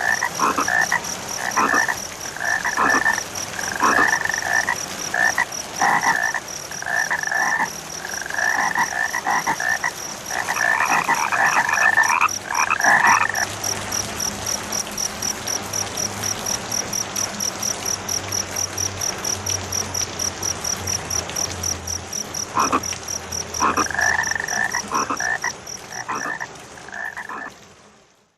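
Frogs croaking in repeated bursts of calls over a rain-like hiss, with a steady, evenly pulsing insect trill above them. The frogs pause for several seconds midway and start again, and everything fades out near the end.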